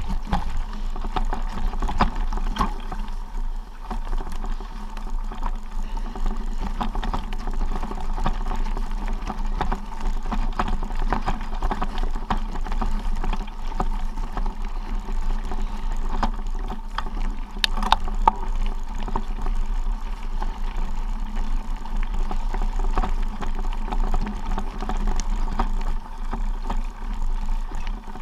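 Continuous low rumble and rattle of travel over a stony gravel track, with many small clicks and knocks from stones and a sharper double click about 18 seconds in.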